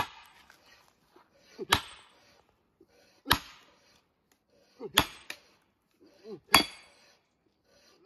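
A hammer striking a steel splitting wedge set in a log round: sharp metallic clanks with a short ring, about one every second and a half, as the wedge is driven in to split the wood.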